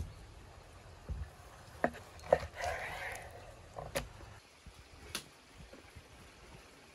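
Knife and raw beef liver slices worked on a wooden cutting board: a few scattered light taps and knocks as the blade and pieces meet the board.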